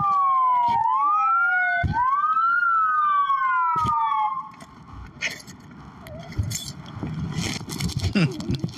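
Two police car sirens wailing out of step, their rising and falling sweeps overlapping, then cutting off about four seconds in. After that come scattered clicks and rustling.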